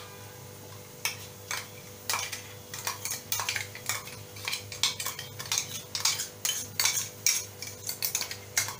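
Spoon scraping and tapping wet ground paste out of an upturned mixer-grinder jar into a glass bowl: a string of irregular clinks and knocks that come faster in the second half, over a faint steady hum.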